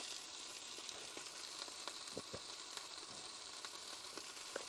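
Faint, steady sizzling with scattered small crackles from meat cooking in tin foil over the heat, used in place of a frying pan.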